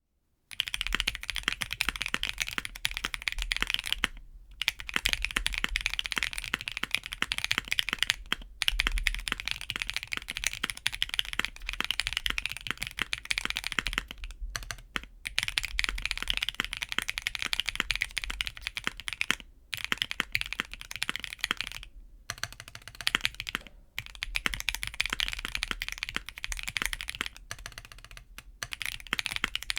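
Typing on a mechanical keyboard with HMX Game 1989 Classic factory-lubed linear switches on an aluminium plate. The keystrokes are fast and continuous, come in runs with brief pauses between them, and have a deep yet poppy clack.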